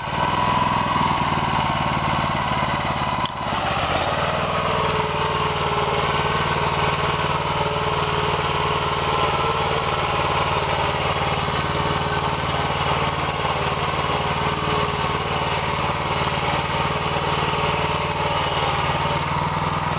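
Walk-behind tractor engine running steadily under load as the tractor pulls a multi-shank cultivator through dry soil, with a brief dip about three seconds in.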